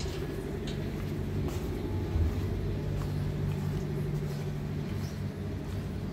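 Steady low hum of a ship's running machinery, with a few faint clicks.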